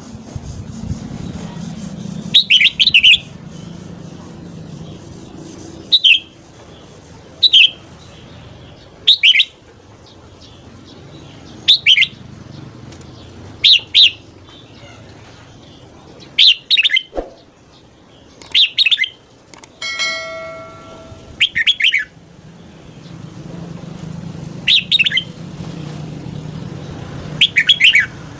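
Red-whiskered bulbul singing short, loud whistled phrases, about a dozen of them, each a second or two after the last.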